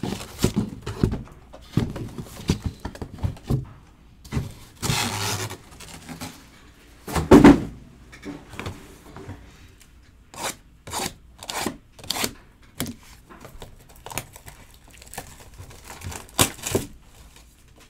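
Cardboard trading-card boxes being handled on a table: a string of scrapes, taps and knocks as boxes are taken out of a cardboard shipping case and set down, with a longer scraping stretch about five seconds in and the loudest knock about seven seconds in.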